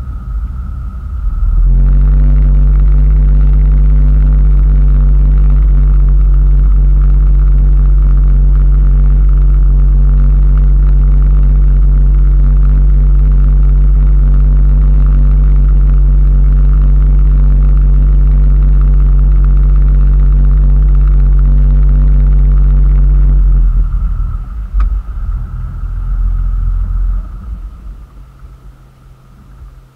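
Motorboat engine opening up about a second and a half in and then running loud and steady at constant speed, under load while towing a kneeboarder. Near the end it is throttled back and drops away to a low idle.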